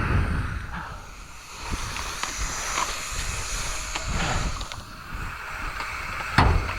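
Wind and handling rumble on the microphone, uneven and gusty, with a single sharp crack about six and a half seconds in.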